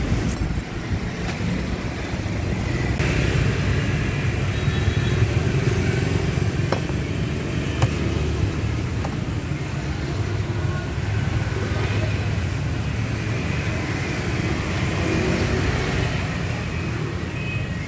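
Road traffic passing close by: a steady low engine rumble that swells and eases, with two light knocks about halfway through.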